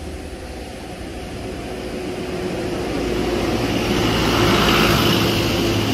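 Motor-vehicle engine passing on the street, its hum and road noise growing louder to a peak about five seconds in.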